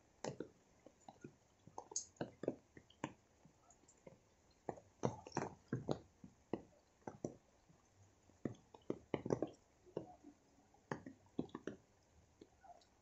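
Raindrops dripping from wet leaves in irregular taps and plops, sometimes singly and sometimes several in quick clusters, over a faint hiss of rainfall.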